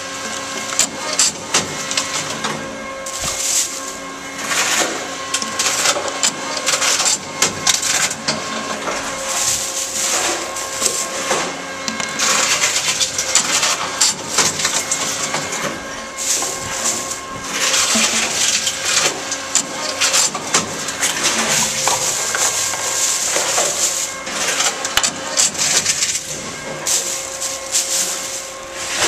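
Tomra T-53 reverse vending machine taking in plastic bottles: a steady mechanical hum, with repeated clatter and crackling plastic as the bottles are handled and drawn through the intake.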